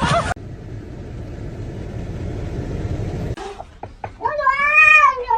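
A low, steady rumbling noise for about three seconds. It stops abruptly, and about a second later a cat meows loudly in long, drawn-out cries that rise and fall in pitch.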